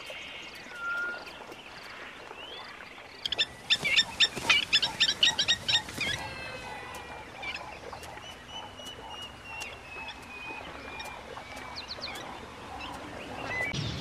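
Plovers calling: about three seconds in comes a rapid run of sharp, high calls, several a second, lasting nearly three seconds. Fainter thin whistled notes follow.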